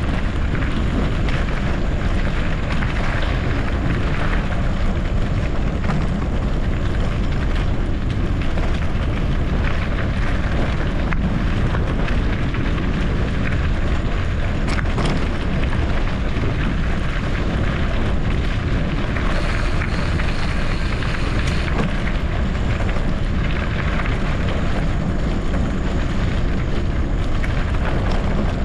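Wind buffeting the microphone with a low rumble from riding over rough off-road ground, and a brief extra hiss about two-thirds of the way through.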